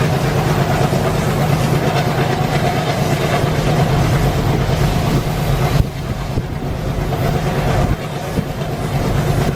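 ALCO WDG-3A diesel locomotive's 16-cylinder engine chugging steadily under power, heard from the train behind it, with the rumble of the wheels on the track. About six seconds in the sound drops a little and turns duller.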